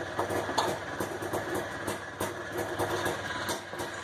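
Polaris Trailblazer's two-stroke engine idling unevenly, freshly rebuilt and just started cold, warming up.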